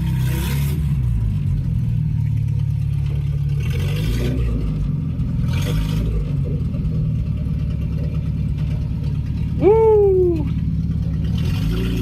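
Datsun 620 pickup's four-cylinder engine running steadily as the truck drives. A man's loud whoop near the end, rising then falling in pitch, is the loudest moment.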